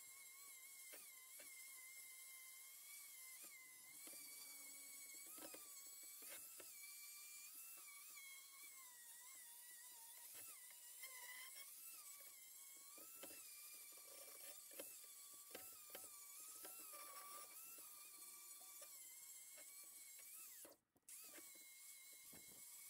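Angle grinder with a strip disc cleaning steel box tubing, heard very faintly, its motor whine dipping and rising in pitch as the disc is pressed on and eased off. The sound drops out for a moment near the end.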